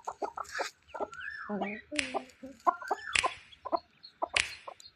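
Baby duckling peeping and chirping in short calls, some gliding up and down in pitch, with a few sharp clicks about a second apart.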